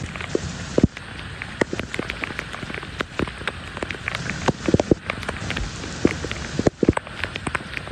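Heavy rain falling, with many close, separate drops striking a surface over a steady hiss.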